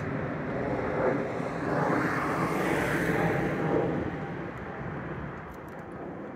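A vehicle passing on the street, a steady rush of engine and tyre noise that fades away after about four seconds.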